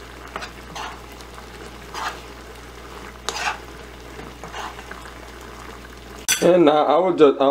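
A ladle stirring jjajang rabokki, rice cakes and noodles in simmering black bean sauce, in a pan, with a stirring stroke about every second over the steady sizzle of the simmer.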